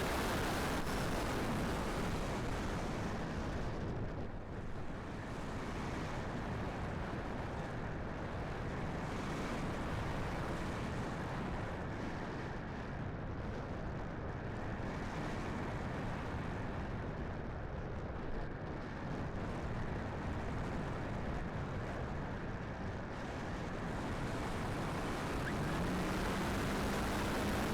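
Strong gusty wind buffeting the microphone, a rushing noise that swells and dips. A faint steady hum comes in near the end.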